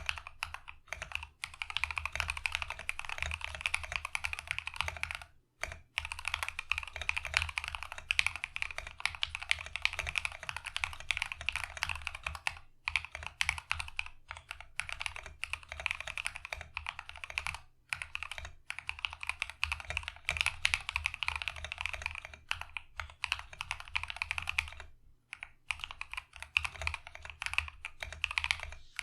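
Fast typing on a mechanical keyboard fitted with Akko SAL-profile double-shot ABS keycaps: a steady run of key clacks, broken by a few short pauses.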